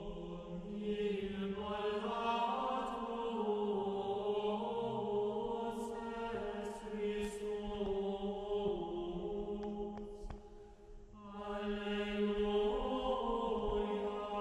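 Background music: slow vocal chant with long held notes, which fades briefly about ten seconds in and then resumes.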